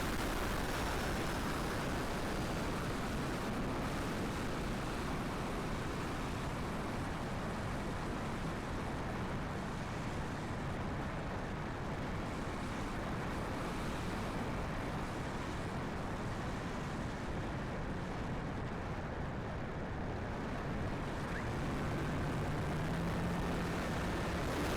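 Strong wind buffeting the microphone: a steady, rumbling hiss with no break. A faint hum that rises slightly in pitch comes in near the end.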